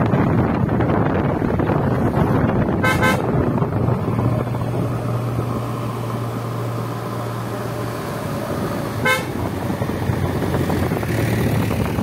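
Two short vehicle horn toots, about six seconds apart, over the steady noise of a car driving on a narrow road.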